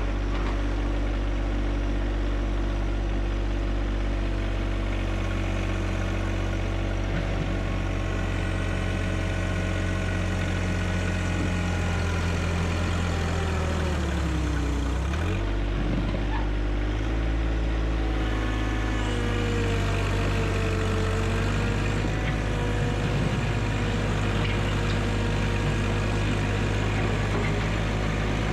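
John Deere 1025R subcompact tractor's three-cylinder diesel engine running steadily; about halfway through its speed dips briefly and picks back up.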